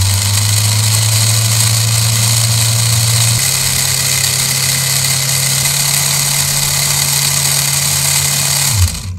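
Mabuchi RS-540SH brushed DC motor running at high speed through a 3D-printed 256:1 plastic gear reduction: a loud, steady motor hum and gear whir, with a slight shift in pitch about three and a half seconds in, cutting off shortly before the end. The motor is run at about 90% speed, which the gear train needs before it turns at all.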